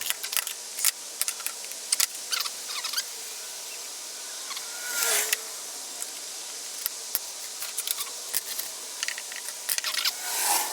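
Failed ABS plastic 3D prints being snipped and handled, making irregular sharp plastic clicks and snaps. Two brief rustling swishes come about five seconds in and near the end.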